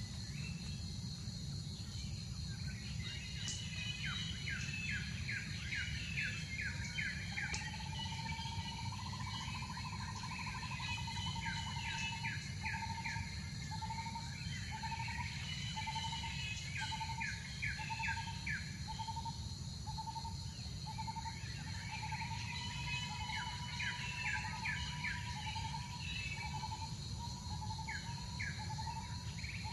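Bird chatter: bursts of rapid chirps every few seconds over a steady high insect drone. A repeated pulsing note joins in about seven seconds in and keeps going at roughly two beats a second.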